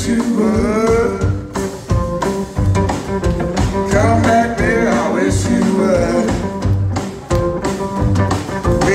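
Live blues band playing: electric archtop guitar, upright double bass and drums, with a man singing in parts.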